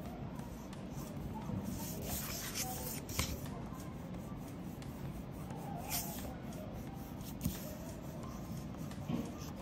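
Wax crayon rubbing and scratching on paper as it colors over a circle in curved strokes, with a couple of light knocks.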